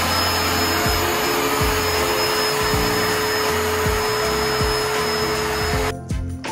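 Ecovacs Deebot T10 Omni robot vacuum running: a steady rush of its suction fan with a constant whine, cutting off suddenly near the end.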